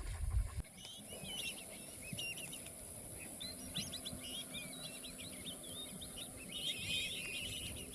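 Small birds chirping and twittering in quick, rapid calls, over a faint steady high-pitched tone. A brief rumble of wind on the microphone comes at the very start.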